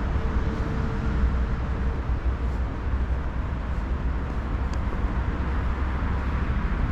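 Steady outdoor background noise with a low rumble, and a faint steady tone through the first couple of seconds.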